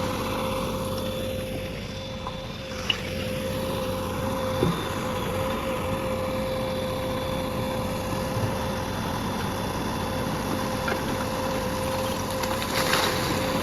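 JCB backhoe loader's diesel engine running steadily, with a steady whine over the low rumble and a couple of brief knocks.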